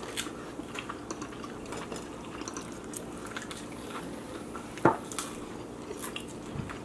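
Eating sounds: small clicks and ticks of a bamboo fork working creamy fettuccine Alfredo onto garlic toast and a plate, with one sharp knock about five seconds in.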